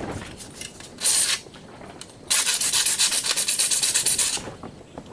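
Scraping on a laptop's aluminum case: a short scrape about a second in, then a run of quick rasping strokes for about two seconds, plausibly wearing through the plastic-feeling coating to show the bare aluminum.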